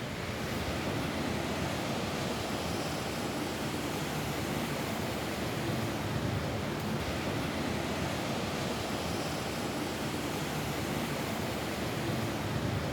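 Rain falling on a roof: a steady, even hiss with no single drops standing out.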